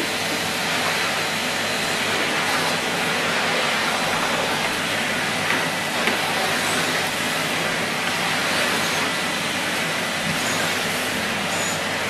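Numatic Henry 160 tub vacuum cleaner running steadily while its floor tool is pushed over carpet, with a couple of light knocks about halfway through.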